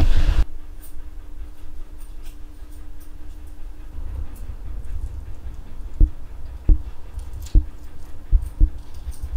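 Footsteps climbing stairs: a series of dull thumps, about one a second or a little faster, in the second half, after a faint steady hum.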